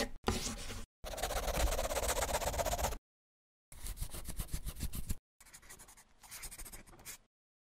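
Scribbling on paper, heard as five bursts of quick strokes that start and stop abruptly with dead silence between them; the last two bursts are fainter.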